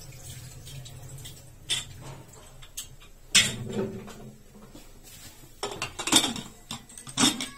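Metal clanks and scrapes of an aluminium pressure cooker's lid being fitted and its handle clamped shut. A few separate knocks, the loudest about three and a half seconds in, and a quick cluster around six seconds.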